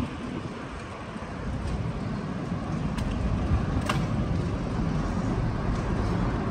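Steady low rumble of wind on the microphone and tyre noise from a bicycle rolling along a paved trail, with two faint clicks about three and four seconds in.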